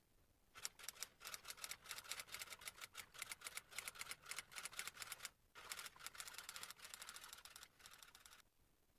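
Rapid, faint clicking taps, like typing on a smartphone, for about five seconds, then a short pause and about three seconds more.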